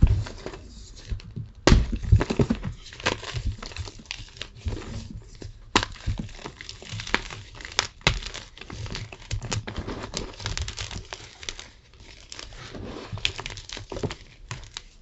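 Tie-dyed gym chalk being crunched close up: dense, irregular crackling and crumbling, with a few louder sharp cracks about two, six and eight seconds in.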